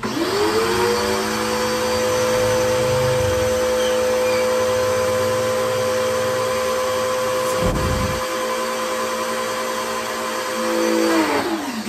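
Kawasaki ACK 302 electric pressure washer switched on: its motor whine rises to speed at once and then runs steadily. There is a single knock about eight seconds in. Near the end the pitch sags and dips.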